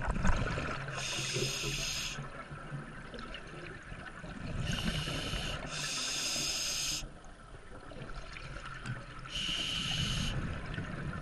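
Scuba diver breathing through a regulator underwater: four hissing inhalations of about a second each, with the bubbling of exhaled air between them.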